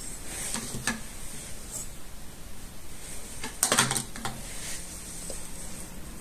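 Light clicks and taps of hands setting halved boiled eggs into vermicelli inside a metal ring mold on a glass platter. A few soft clicks come about a second in, and a louder quick cluster of clicks comes a little past halfway.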